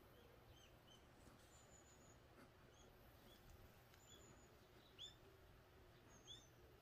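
Near silence with faint, scattered bird chirps: short high calls every second or so, the clearest about five seconds in.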